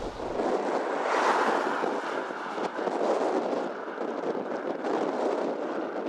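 Wind rushing over the microphone, an uneven noise that swells and eases, strongest about a second in.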